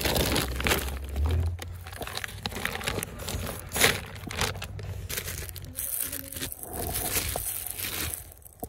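Irregular crinkling and crackling, like a bag or wrapper being handled close to the microphone.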